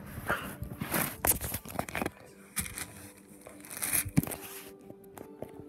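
Rustling and crinkling noises in irregular bursts, with a sharp click about four seconds in.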